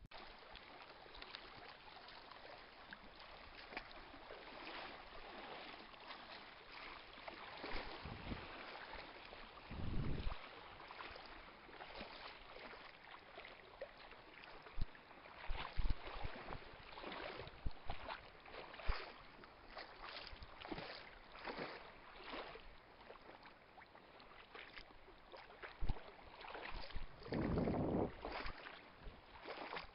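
Water splashing and sloshing in irregular swishes over a steady hiss, with two heavier surges, one about a third of the way in and one near the end.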